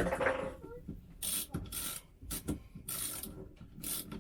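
Hand-tool work: a series of short, irregular ratcheting and scraping strokes, several to the second at times, with brief pauses between.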